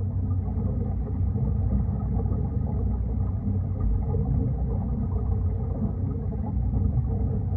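Steady, muffled underwater rumble of a swimming pool, heard through an underwater camera's housing, with most of the sound low and little treble.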